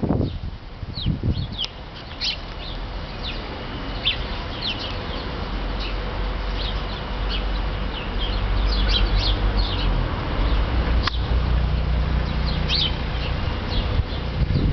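A flock of sparrows chirping in short, scattered calls over a low rumble that grows louder about halfway through.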